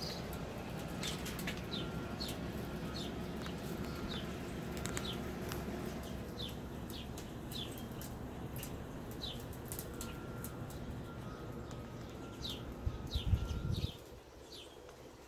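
Small songbird chirping over and over in short, high notes that slide downward, two or three a second, over a steady low rumble that drops away near the end.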